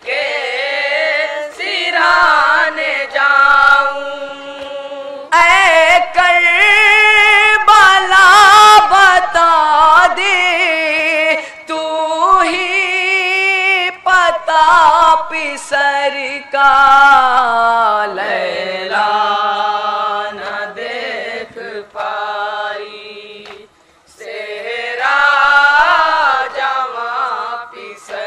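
A group of young male voices reciting a noha, a Shia mourning lament, together over microphones and without instruments. They sing long, drawn-out melodic lines with brief breaks between them.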